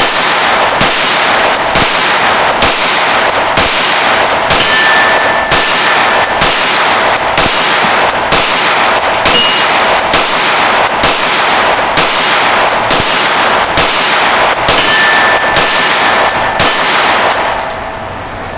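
Springfield Armory 1911 DS Prodigy 9mm pistol fired in a steady string of about twenty shots, a little under a second apart. Each shot is followed by a short ringing tone, and the firing stops shortly before the end.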